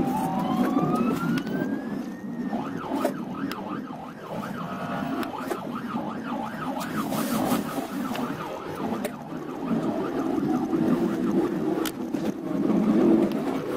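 Ambulance siren sounding close by: a rising wail, then a fast warbling yelp for several seconds that fades out about two-thirds of the way through. Steady traffic and road rumble runs underneath and grows louder near the end.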